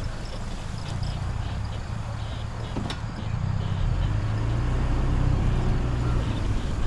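A vehicle's engine running with a steady low drone, with a sharp click about three seconds in.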